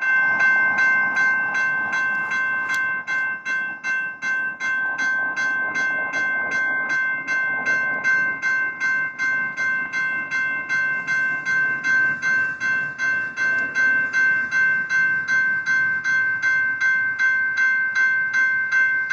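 General Signals Type 2 mechanical railroad crossing bells ringing rapidly, about three and a half strokes a second, each stroke ringing on into the next so the bell tone never dies away. This signals that the crossing is active and the gates are moving.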